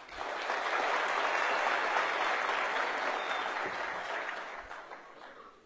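Audience applauding, steady for about four seconds, then fading out.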